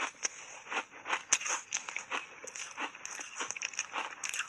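Matcha-powder-coated block ice being bitten and chewed: a quick, irregular run of crunches and cracks, the sharpest about a second and a half in.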